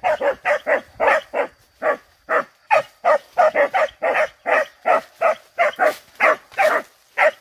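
Hunting dogs barking in a rapid, continuous series, about three to four barks a second, with a brief pause about two seconds in.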